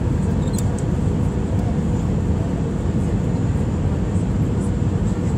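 Cabin noise of an Airbus A319 on final approach, heard from a window seat over the wing: the steady rumble of the jet engines and rushing air, with a faint steady whine above it.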